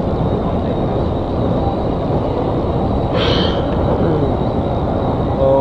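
MBTA Red Line 01800-series rapid-transit car running along the track, heard from inside the leading car: a steady rumble of wheels on rail, with a brief hiss about three seconds in.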